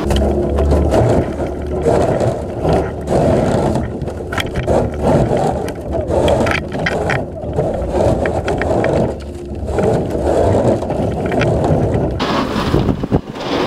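Aluminium pontoon boat hulls breaking and scraping through thin ice and slush: a continuous grinding crunch broken by many sharp cracks, over rushing water and the boat's outboard motor running.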